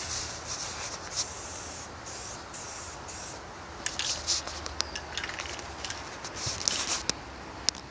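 Aerosol spray-paint can hissing in short bursts, several times, with scattered sharp clicks.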